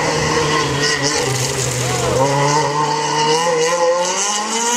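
Rally car engine running hard as the car comes along the stage, its note climbing through the second half.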